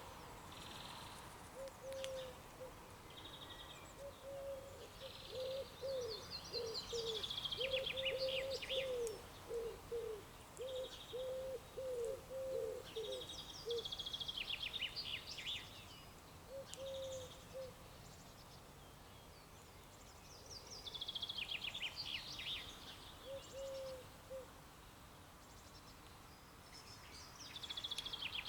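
Songbirds singing, with a high, fast trilling song phrase repeated every six or seven seconds and fainter chirps between. A run of short, low notes from another bird comes through the first half.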